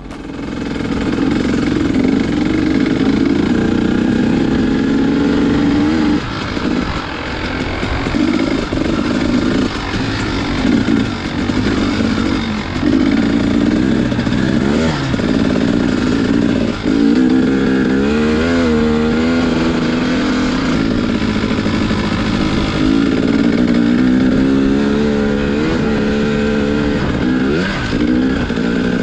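Dirt bike engine revving up and down over and over as the rider works the throttle and shifts, heard from the bike's onboard camera. Its pitch swings quickly up and down a few times about two-thirds of the way through and again near the end.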